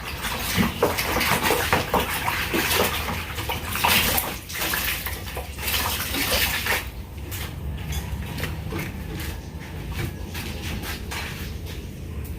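Water spraying and splashing during the cleaning of a split-type air conditioner, with small clatters. About seven seconds in the spray stops, leaving a steady low hum.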